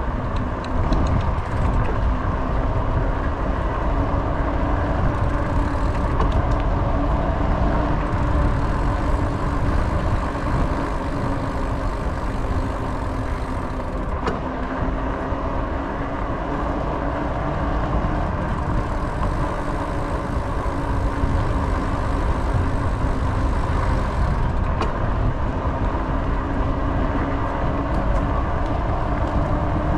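Steady wind rumble on a moving action camera's microphone, with a faint, even hum underneath.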